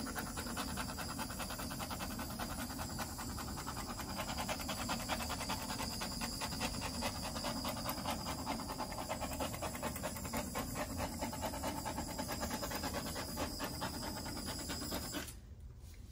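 Handheld torch flame hissing steadily as it is passed over wet acrylic paint to pop air bubbles. It cuts off suddenly about fifteen seconds in.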